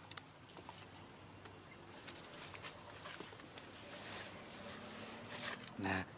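Monkeys moving about: faint rustling and scattered small clicks, with one short, low call near the end.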